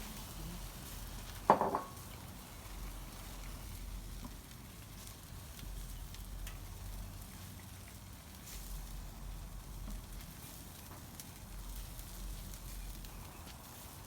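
Chicken halves sizzling over hot charcoal in a Weber Smoky Mountain as they are being sauced, with a few faint crackles. A single sharp knock about a second and a half in.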